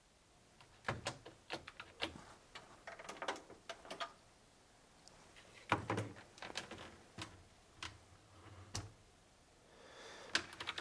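Scattered light clicks and knocks as an old corded desk phone is handled and its handset lifted off the cradle. The line is dead, with no dial tone, because the building has no power.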